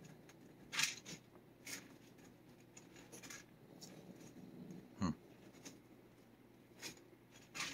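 Faint, scattered rustles and scratches, about five short strokes, from the plastic cat-treat tube being handled in fingers close to the microphone. There is one brief low sound about five seconds in.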